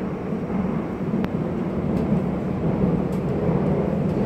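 Steady low rumble of an RER E commuter train running, heard inside the passenger car, with a couple of faint ticks.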